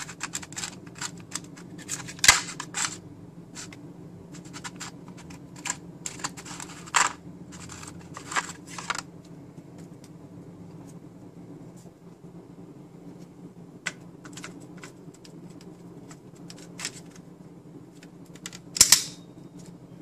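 Clicks and rattles of a DDR3 ECC RAM module being handled and lifted out of its plastic packaging tray, then a few loud sharp clicks near the end as the module is pressed into its motherboard slot and snapped into place.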